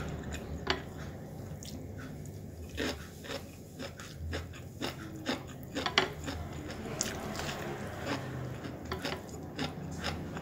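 A person eating with the fingers: scattered mouth clicks and smacks from chewing, with fingers scraping and tapping on the plate, thickest in the middle of the stretch.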